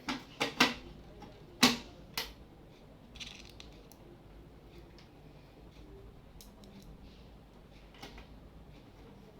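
A few sharp clicks and knocks in the first couple of seconds, the loudest about a second and a half in, then faint scattered ticks. These are parts of a Canon LBP2900 laser printer being handled and fitted back together during reassembly.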